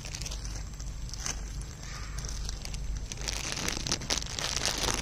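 Dry leaf litter rustling and crackling as it is stirred, growing denser and louder about three seconds in.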